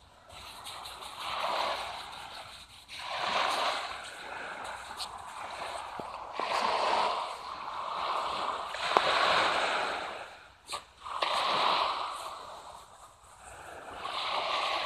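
Swishing, scuffling noise of digging and rolling in loose material, coming in surges every second or two, with a sharp click or two between them.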